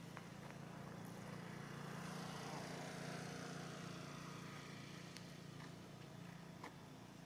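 Faint motor vehicle passing in the distance, swelling to its loudest about three seconds in with a falling pitch and then fading, over a steady low hum, with a few faint clicks.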